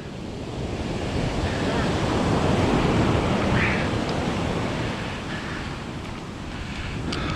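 Ocean surf breaking and washing up the beach, with wind buffeting the microphone; the wash swells about two to three seconds in and then eases.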